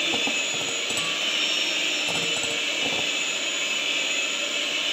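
Electric hand mixer running steadily, its twin beaters whisking egg whites in a glass bowl, with a few faint clinks of the beaters against the bowl.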